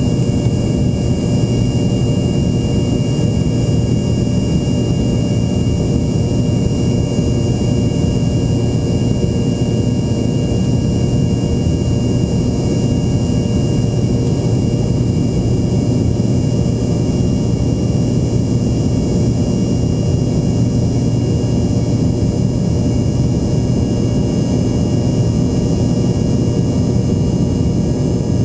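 Embraer ERJ-145's rear-mounted turbofan engines heard from inside the passenger cabin: a steady, loud drone and rush of air with a constant high whine laid over it.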